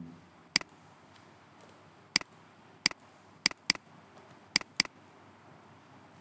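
Computer mouse clicking: seven sharp clicks, the later ones in two quick pairs like double-clicks, over a faint steady hiss.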